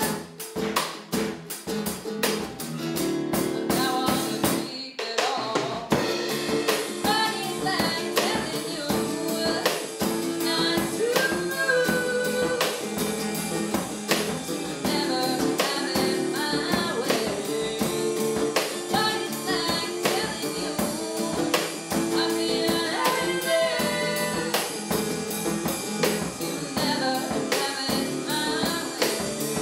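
A small rock band playing a song: a Ludwig drum kit keeping a steady beat, a strummed acoustic guitar and an electric bass, with a young woman singing lead. There is a brief break about five seconds in before the full band and vocal come back in.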